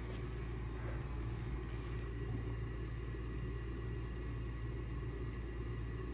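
Gas furnace's small draft-inducer motor running with a steady low hum, with the main blower not running, so no air comes out. The burner has not lit yet: a furnace stuck before ignition, which the owner expects to shut off before the flame comes on.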